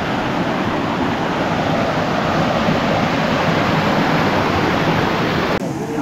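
Steady rush of stream water flowing over rocks. Near the end it cuts to a duller rush.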